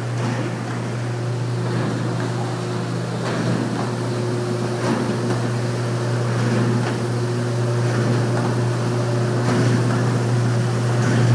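Galvanized-sheet potato washing machine running: a steady electric-motor hum under a rushing noise with faint irregular knocks from the working sections.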